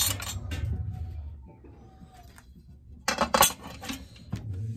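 Light metal clinks and taps as a chainsaw bar plate is handled and fitted over the bar studs of a Homelite XL-12, with a quick cluster of sharp clinks about three seconds in.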